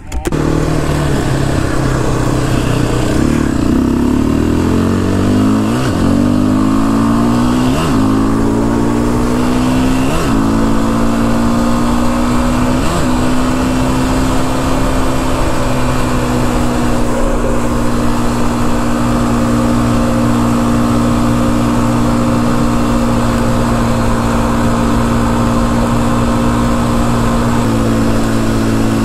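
ATV (four-wheeler) engine pulling away and accelerating through four gear changes. Its pitch climbs and dips briefly at each shift, then it settles into a steady cruise, rising slightly near the end.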